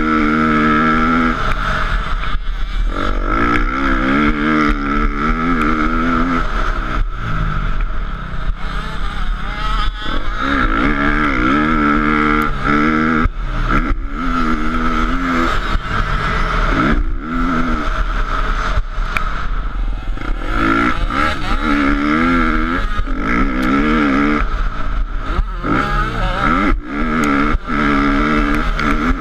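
KTM motocross bike engine revving hard at full race pace, its pitch climbing, breaking off and climbing again over and over as the rider accelerates, shifts up and shuts the throttle for corners and jumps.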